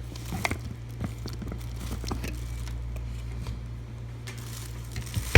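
Kitchen handling noises: scattered light clicks and rustles as ingredients and the food processor are handled, with one sharp click near the end, over a steady low hum.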